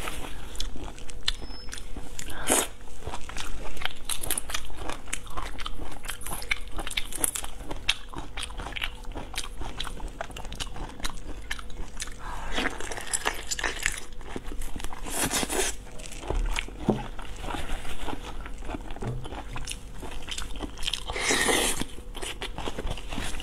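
Close-miked eating: dense biting, crunching and chewing on shell-on seafood, with a few louder sucking sounds at the shells.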